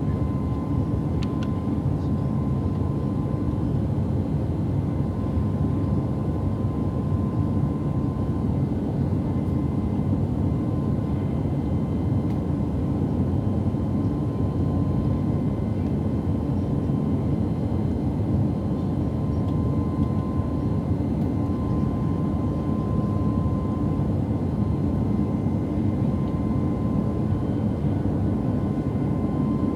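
Jet airliner's engines and rushing air heard inside the passenger cabin: a steady, deep noise with a thin, constant whine above it.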